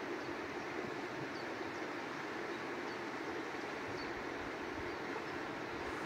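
River water rushing steadily, an even unbroken rush.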